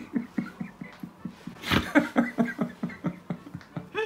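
A woman laughing in rapid, breathy pulses, several a second, with one sharp breath about halfway through and her voice rising in pitch just before the end.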